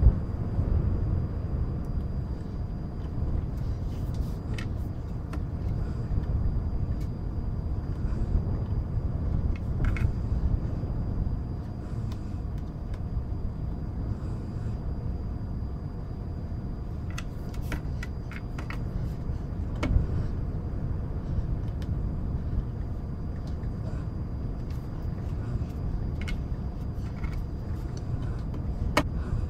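Steady low wind-like rumble of a background noise layer, with scattered light clicks of cardboard jigsaw puzzle pieces being handled and set down, including a quick run of several clicks a little past halfway.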